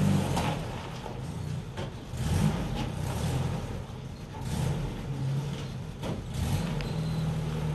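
1960 Willys jeep's engine running at low revs as it crawls over rock, the loudness rising and falling, with a few short knocks.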